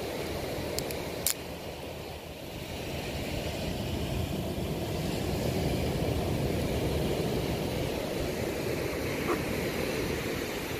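Steady low rumble of wind and sea surf on an open beach, swelling slightly a few seconds in, with a sharp click about a second in.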